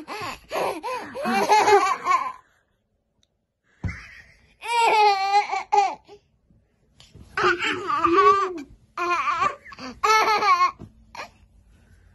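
Toddler girl laughing in several bouts with short pauses between them, and a gap of silence a couple of seconds in.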